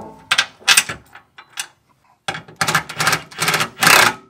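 Hand ratchet clicking as it runs a bolt into a steel bracket: two short bursts of clicks about half a second in, then a quick run of about five strokes from about two seconds in.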